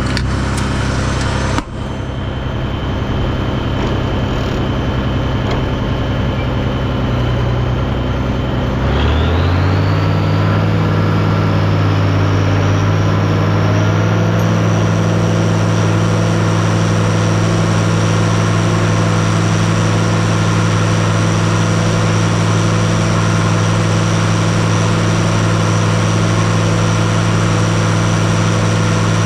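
Tractor engine running steadily, then revving up about nine seconds in and holding at a higher speed, with a thin high whine rising alongside it.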